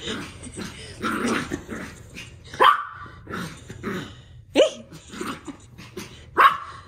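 Small dog barking in play: three sharp barks about two seconds apart, with softer growling between them.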